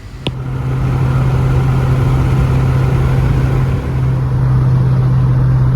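A vehicle driving at a steady speed: a steady low engine drone with road noise, coming up within the first second after two short clicks.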